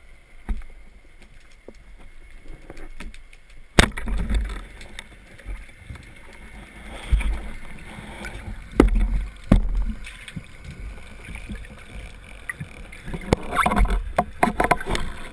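Rubber-band speargun fired underwater: one sharp clack about four seconds in. Scattered knocks and a low water rumble follow, with a run of clicks near the end.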